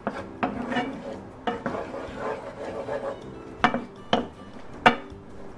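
A wooden spoon stirring diced onion and garlic sautéing in butter in a nonstick frying pan, scraping and knocking against the pan with several sharp taps, the loudest near the end.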